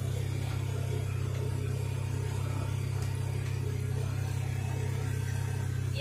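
Side-by-side utility vehicle's engine running at a steady speed while driving, a constant low drone heard from inside the cab.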